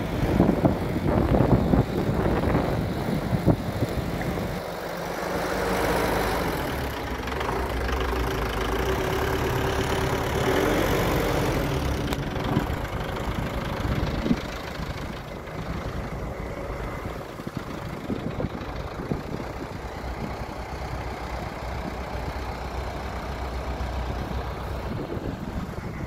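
Wind buffeting the phone's microphone in a snowstorm, with road traffic running alongside; a steady vehicle hum comes through for several seconds in the middle.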